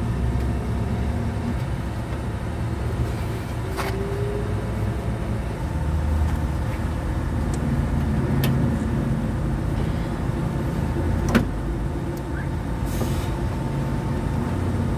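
Steady low rumble of a motor vehicle running, with a few sharp metallic clicks from a wrench working the nut on a front suspension link rod. The loudest click comes about two-thirds of the way through.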